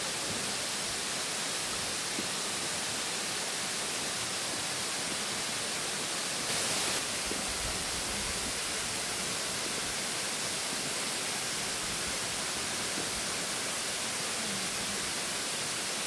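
Steady rushing of a tall waterfall plunging into a pool, with a brief louder surge about six and a half seconds in.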